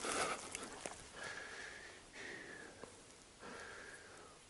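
A person breathing in and out close to the microphone, several soft breaths about a second apart, with a rustle of brush at the start.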